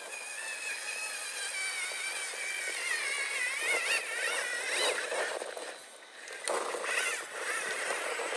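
RC4WD 1/10-scale Pro Rock Racer's electric motor and geartrain whining as it is throttled up a slope, the pitch wavering up and down with the throttle. It drops off briefly about six seconds in, then picks up again.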